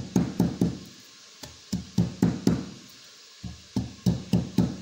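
Stone batta pounding garlic cloves on a stone countertop: sharp knocks about four a second, in runs of four or five with short pauses between.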